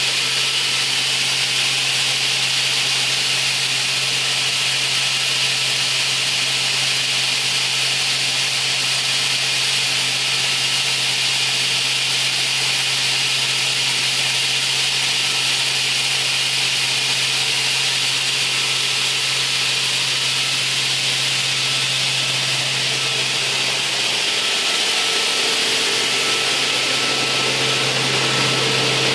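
OGAM PO-340 track-feed multi-rip saw running with its blade spinning free and no wood in the cut: a steady low hum under a high airy hiss. The low hum fades for a moment a few seconds before the end.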